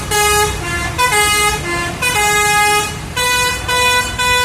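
Basuri telolet multi-tone horns sounding a string of loud held notes that change pitch every half second to a second, over a low engine rumble.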